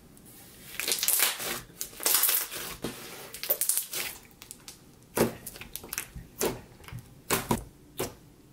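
Thick, glossy slime being kneaded and pressed by fingers, popping its trapped air bubbles: a run of dense crackling over the first few seconds, then a handful of separate sharp pops as a finger pokes into it.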